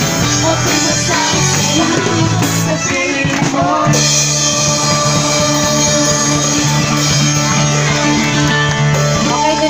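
Live band playing a song, loud and close: drum kit with cymbals under sustained instruments, with a singing voice coming in at times.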